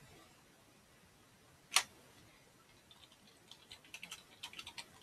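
Light clicks at a computer desk: one sharp click about two seconds in, then a quick, uneven run of about a dozen lighter clicks near the end.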